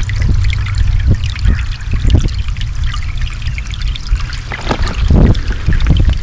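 Running water in a small stream, trickling and splashing continuously, with a strong low rumble underneath.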